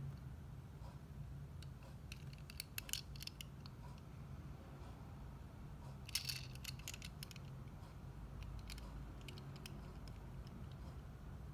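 Light clicks and ticks of fingers handling and turning a 1:64-scale model car, a cluster about two and a half seconds in and a sharper one about six seconds in, over a steady low hum.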